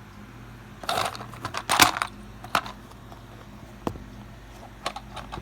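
Small objects being picked up and set down on a desk: a cluster of clattering clicks and knocks about a second in, a single knock near four seconds, and a few lighter clicks near the end, over a steady low hum.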